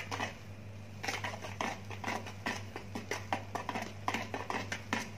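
Metal wire whisk beating wet cake batter in a plastic bowl: an irregular run of light clicks and taps, a few each second, as the tines knock against the bowl.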